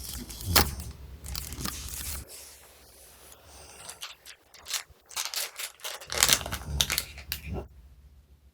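Irregular crinkling, tearing and clicking noises from handling slime-making supplies, in scattered bursts with a quieter stretch in the middle.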